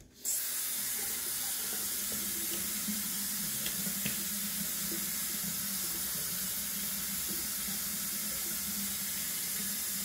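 A sink tap turned on just after the start and running steadily into the basin.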